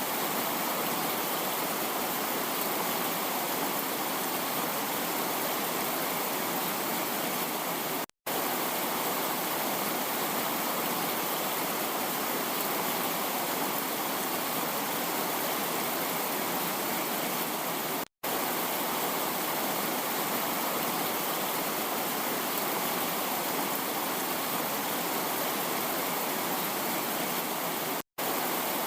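Heavy rain falling in a steady, dense hiss. It cuts to silence for a split second three times, about every ten seconds.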